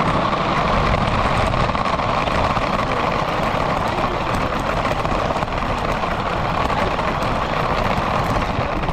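Radio-controlled car driving, heard from a camera mounted on the car itself: its motor and drivetrain running together with tyre and road noise, a loud, steady, dense rushing sound.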